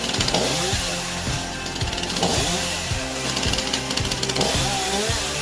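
Chainsaw mounted on a metal frame, running and cutting through logs, heard over background music.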